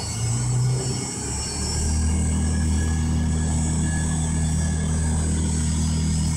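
Motors of an RS-100L vacuum emulsifying mixer running with a steady low hum as the agitator and wall scraper turn in the cream. About a second in the pitch shifts, and from about two seconds the hum settles slightly louder and steady.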